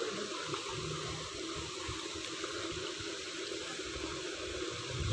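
Steady rushing of running water, with irregular low rumbling underneath.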